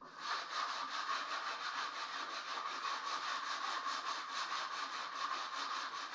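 Sanding on the carved wood of an old fireplace mantel, stripping old finish: a steady rasping with an even pulse of about six strokes a second, starting abruptly.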